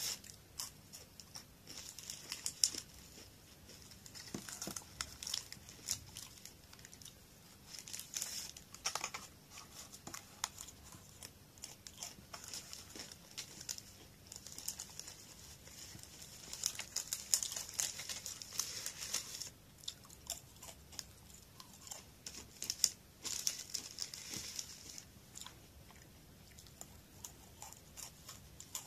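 Glico Pretz baked pretzel sticks being bitten and chewed with a dry crunching, in spells of a few seconds, along with some crinkling of the packaging.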